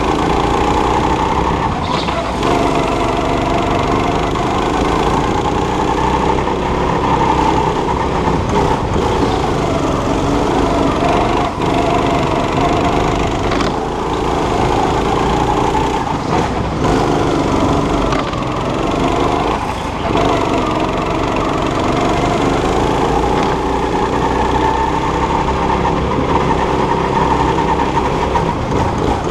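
Go-kart's small engine heard up close from on board, its pitch rising and falling again and again as the kart accelerates out of corners and backs off into them, with a few sharp knocks along the way.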